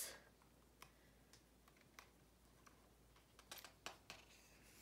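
Near silence: room tone with a few faint, scattered clicks and taps, a small cluster of them near the end.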